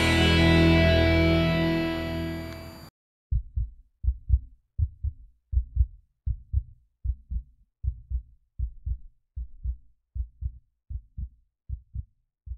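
Guitar rock music that fades and cuts off about three seconds in, followed by a heartbeat sound effect: pairs of low thumps, about three pairs every two seconds, slowly growing fainter.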